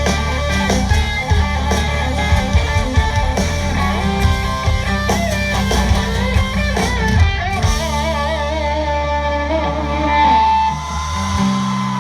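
A live country rock band playing an instrumental passage: electric guitar plays held, wavering notes over bass and drums.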